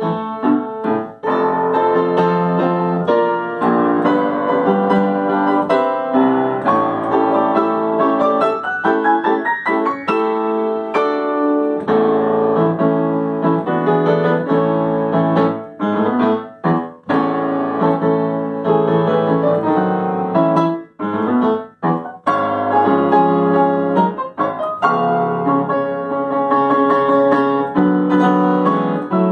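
Yamaha upright piano played solo, notes sounding continuously, with a quick rising run about a third of the way in and a few short breaks in the second half.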